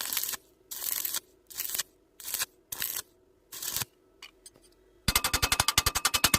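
Stick welding arc crackling in short bursts, struck and broken again and again, about six times in four seconds. About five seconds in, music with a fast pulsing beat comes in.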